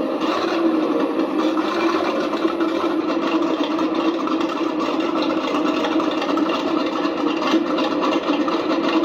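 Recorded tank engines running steadily, a sound clip played by an Elmod Fusion Pro RC tank sound board through a small boxed loudspeaker.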